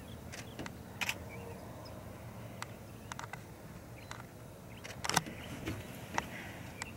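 Scattered faint clicks and taps of a handheld camera being handled and zoomed while tracking a bird, over a low steady hum; the loudest click falls a little past the middle.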